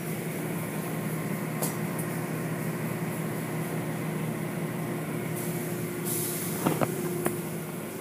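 Automatic car wash machinery running, heard from inside the car: a steady low hum with a hiss of spray and foam over the car. A few sharp knocks come about seven seconds in.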